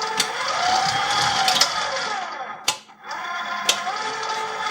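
Electric stand mixer running at its lowest 'stir' speed with its attachment on. The motor whine wavers slowly up and down in pitch, with sharp clicks about once a second and a brief dip in level about three seconds in.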